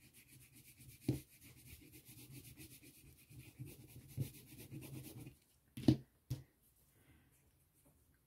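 Caran d'Ache wax pastel rubbing softly across a small card surface in short strokes, then two light knocks about six seconds in as something is set down on the table.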